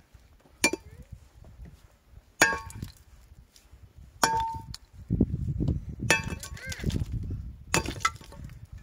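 Sledgehammer striking a large limestone boulder to break it up: five heavy blows about two seconds apart, each a sharp crack with a brief metallic ring from the hammer head.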